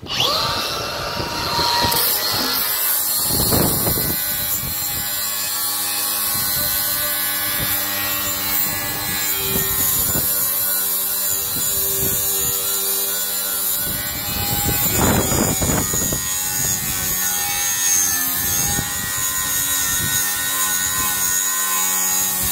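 AEG 18-volt brushless cordless angle grinder starting up and running with a flap disc grinding the steel edge of an excavator bucket to sharpen it: a steady motor whine over the rasp of the disc on steel, swelling louder twice as it bites.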